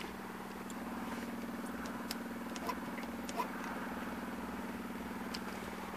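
Ultralight's electric fuel pump running with the engine off: a steady low buzzing hum, with a few faint ticks in the middle.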